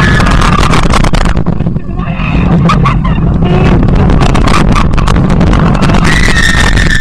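Mine-train roller coaster running along its track: a loud, steady rumble with constant rattling and clacking, and a high squeal held for about a second near the end.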